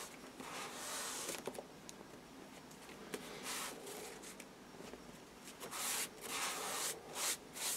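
Soft cloth rubbing over an airbrush stencil on paper towel, a few faint swishing wipe strokes that come and go as the cloth, damp with airbrush cleaner, scrubs off the paint.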